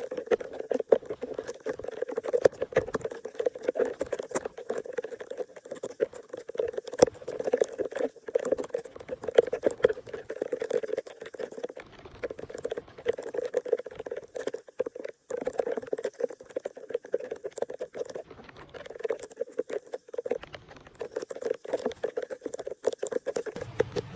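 Dense, irregular pattering and splashing of water, continuous and fluctuating. Near the end it cuts abruptly to a steady high hiss with a low hum.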